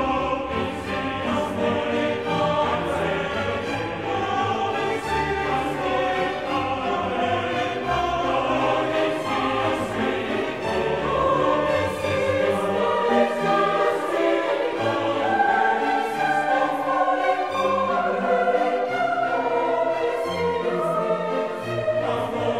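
Classical orchestral music with a choir singing in long held notes over a slowly stepping bass line.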